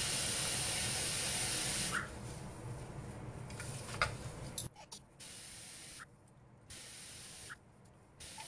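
Steady hiss that stops abruptly about two seconds in and returns in short on-off blocks later, with a single sharp click about four seconds in as a kitchen knife is set down on a wooden cutting board.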